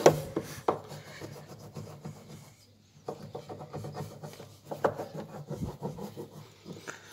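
A block of paraffin wax rubbed back and forth along a wooden drawer runner, scraping on the wood, to wax the slide of a drawer that rubs. A couple of knocks at the start, a short pause about two and a half seconds in, then the rubbing strokes resume.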